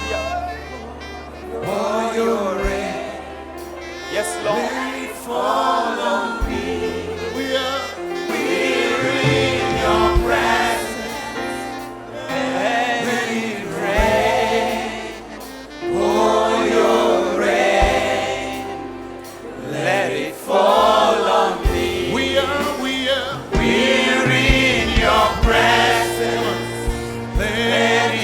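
Gospel worship song: a choir singing over a band, with bass and drum beats.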